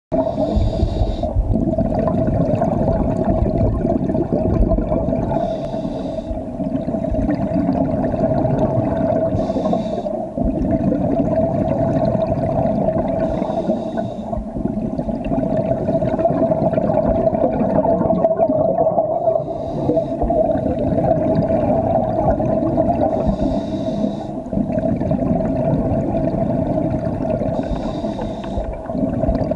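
Scuba diver's regulator breathing underwater: bubbling exhalations and hissy breaths repeating about every four seconds, over a steady hum and low rumble.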